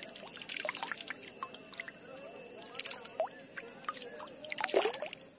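Small water drips and splashes: a scatter of short, sharp drop sounds, the loudest near the end.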